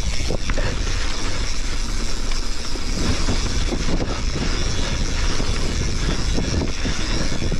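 Mountain bike descending a dirt trail at speed: a steady rush of wind on the microphone over the rolling of knobby tyres on packed dirt, with the bike rattling and clicking over small bumps.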